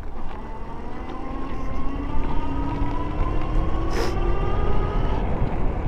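Super73 S2 e-bike's electric hub motor whining as the bike speeds up, its pitch rising slowly, over a steady low rumble of wind and road noise. A single sharp click about four seconds in.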